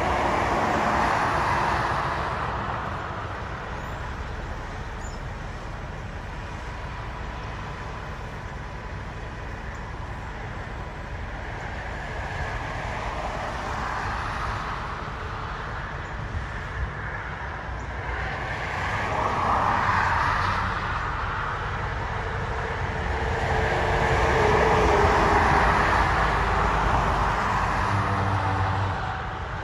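Highway traffic going by, with several vehicles swelling up and fading away over a steady low engine rumble. The loudest pass comes near the end.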